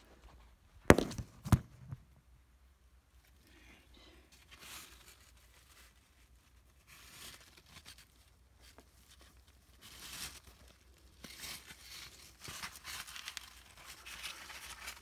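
Two sharp knocks about a second in, then a cloth bag of dubia roaches being handled and shaken over a plastic bin, rustling and crinkling on and off and growing busier in the second half.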